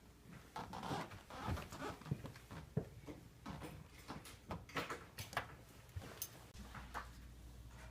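Faint, irregular clicks and knocks with some rustling.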